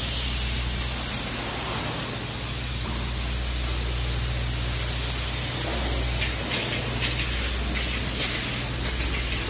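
Spray foam gun hissing as closed-cell foam is sprayed, a steady hiss that grows brighter from about five seconds in, over a steady low hum.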